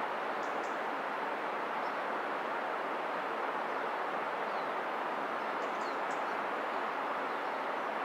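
Steady, even rushing of a river's flowing water, with a few faint bird chirps about half a second in and again around six seconds.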